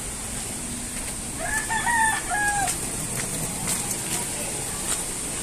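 A rooster crowing once, starting about a second and a half in and lasting just over a second, its last note falling, over a steady high hiss.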